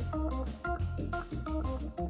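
Background music: keyboard chords struck in a steady rhythm over a bass line.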